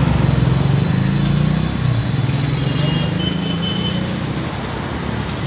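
An engine running steadily with a low hum, easing down and getting a little quieter about two seconds in.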